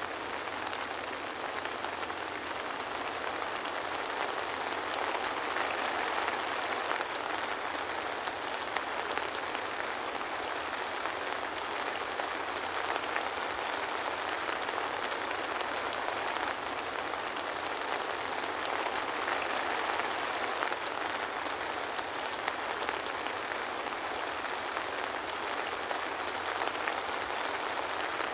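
Steady soft rain falling: an even hiss with scattered light drop ticks.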